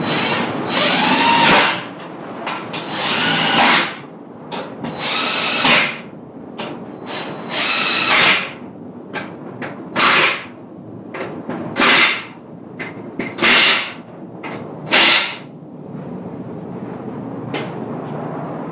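Impact wrench spinning the car's wheel bolts in and out in about eight short bursts, some with a rising whine, over a steady shop background.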